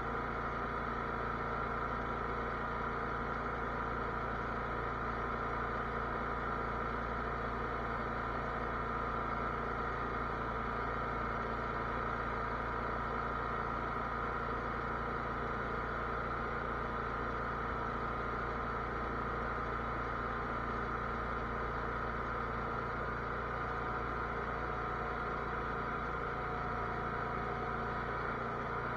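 Cub Cadet garden tractor engine running steadily at a constant speed.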